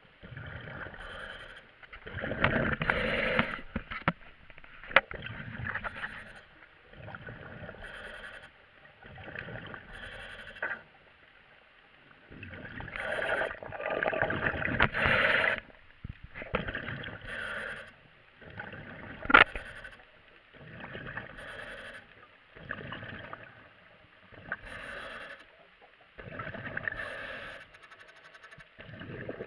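Diver breathing through a demand regulator underwater: a hiss on each inhale and a bubbling rush on each exhale, repeating every couple of seconds with a few longer, louder breaths. A single sharp knock about two-thirds of the way through.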